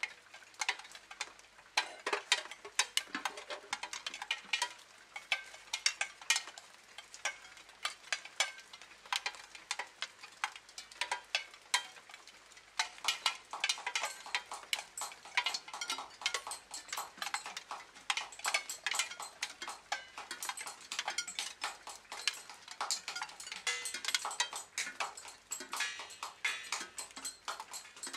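Dense, irregular clicking and ticking: many small sharp taps following one another unevenly, with brief lulls, and no steady tone beneath.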